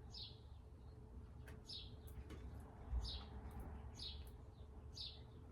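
A bird chirping over and over, about once a second, each a short falling chirp. There is a low thump about three seconds in.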